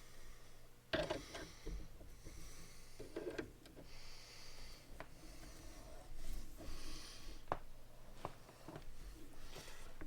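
Handling noises: scattered clicks, light knocks and brief rustles and scrapes of small parts and tools being picked up and moved.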